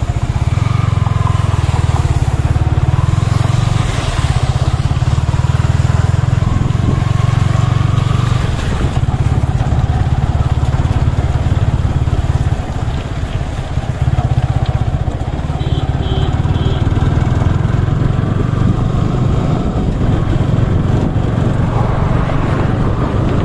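Motorcycle engine running steadily, a low even throb.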